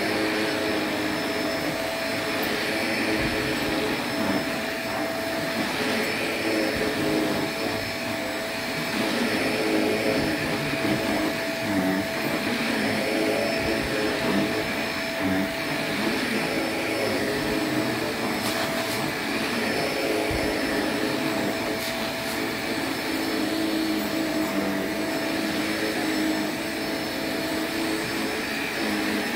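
Shark upright vacuum cleaner running steadily while being pushed over a new woven rug, its motor whine and brushroll hiss holding an even pitch and level throughout.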